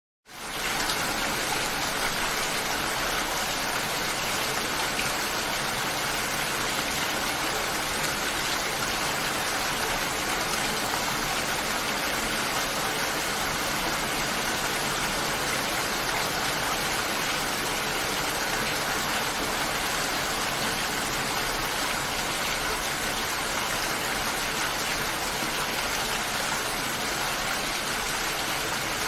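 Steady, dense rainfall, a constant even hiss that fades in quickly at the start and then holds unchanged.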